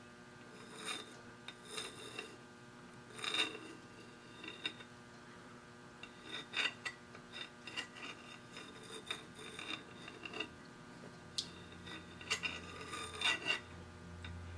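Compass point scratching a scribed arc into a metal plate: a series of short, faint scrapes, with the point seated in a center-punch mark.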